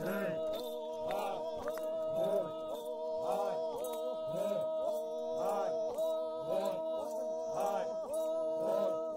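Background music: a sustained, held drone with a regular low beat about once a second.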